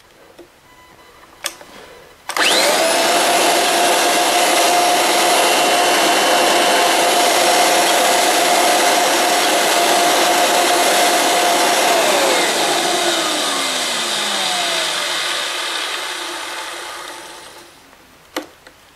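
Kirby G4 upright vacuum cleaner's motor switched on about two seconds in, running loud and steady with a strong whine, then switched off and winding down, its pitch falling and sound fading over several seconds. Its self-propelled tech drive is engaged and drives the wheels forward only, a sign of a failed tech drive transmission.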